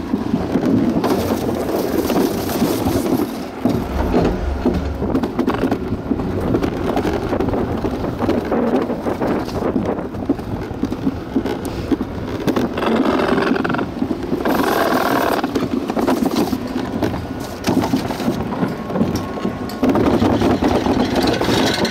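Alpine slide sled running at speed down a fiberglass track, a continuous rough rushing and rumbling noise that keeps going the whole way down to the braking run at the bottom.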